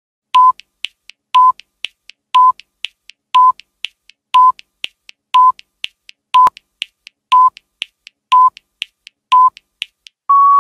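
Electronic countdown beeps: a short, mid-pitched beep once a second, ten in all, with fainter clicks between them, then a longer, slightly higher final beep near the end.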